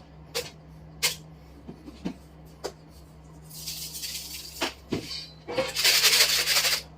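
Steady hum of an air fryer oven running, with a scatter of short sharp clicks and knocks from kitchen handling. Two stretches of hiss or rattle come in, one in the middle and a louder one near the end.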